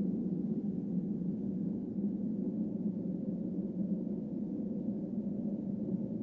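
A steady low drone that holds even throughout, with nothing sudden in it.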